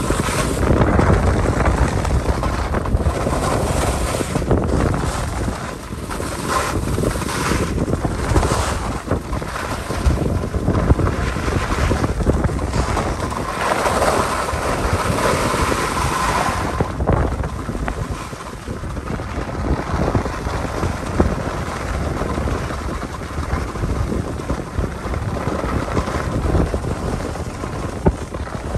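Wind buffeting the microphone of a camera moving fast downhill, mixed with the hiss and scrape of skis and a snowboard sliding over groomed snow. The rushing noise swells and fades unevenly with the turns.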